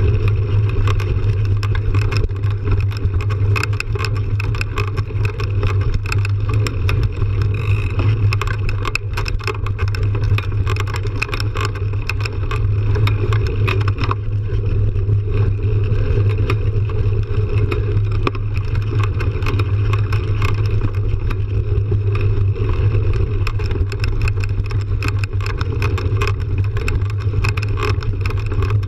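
Mountain bike rolling fast over a dirt fire road: a steady rush of wind on the microphone and tyre noise, with frequent small rattles and clicks from the bike and gravel.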